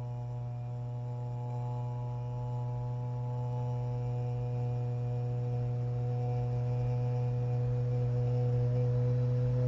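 A low, steady drone sung on an "O" vowel in meditation toning, held without a break and slowly swelling, its overtones shifting near the end.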